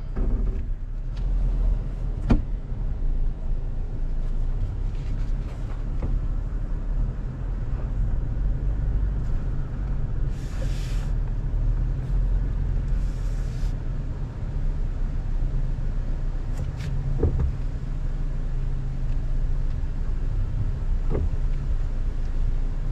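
Toyota Tacoma pickup heard from inside the cab while driving slowly on a dirt trail: a steady low engine and road rumble, with a few sharp knocks as the truck jolts over bumps and two brief hisses near the middle.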